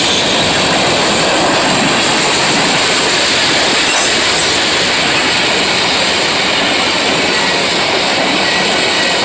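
Freight train passing close by: boxcars and empty flatcars roll steadily over the rails, a loud, even noise of wheels on track.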